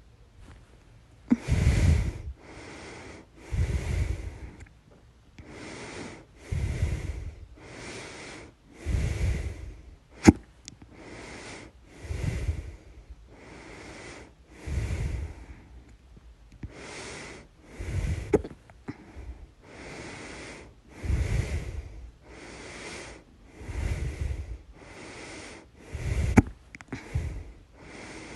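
A person breathing heavily and noisily close to the microphone, in and out over and over during a bout of hiccups. A few sharp, sudden hiccups break through, about ten seconds in and again near the end.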